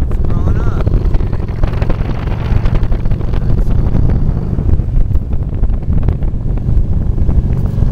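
Motorcycle running at road speed, its engine mixed with heavy wind buffeting on the microphone, a steady loud low rumble.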